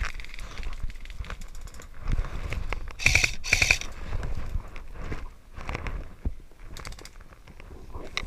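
Footsteps and rustling through dry undergrowth, with two short bursts of rapid clicking about three seconds in and a fainter one near the end.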